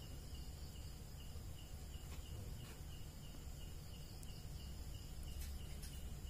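Faint background with a short high chirp repeating evenly about three times a second, like an insect, over a low steady hum.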